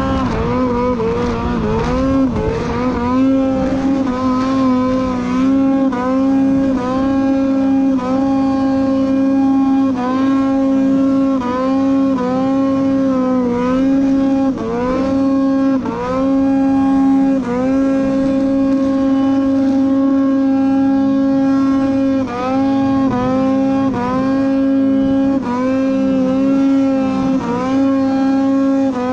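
Two-stroke mountain snowmobile engine running at high, steady revs through deep powder, its pitch dipping briefly and climbing back every second or two as the throttle is eased and reapplied.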